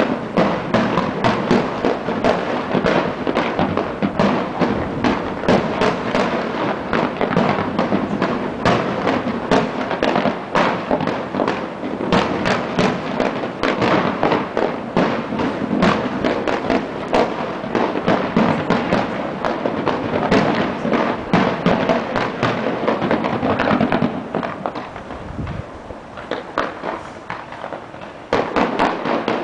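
Fireworks going off in a dense, nonstop barrage of bangs and crackles. The barrage eases off for a few seconds near the end, then picks up again.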